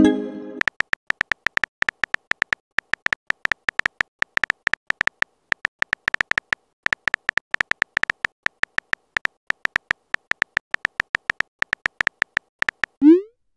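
Phone-keyboard typing sound effect: a long run of short, high ticks, several a second, as a chat message is typed out letter by letter. A louder pitched pop opens it, and a short rising bloop comes near the end as a message is sent.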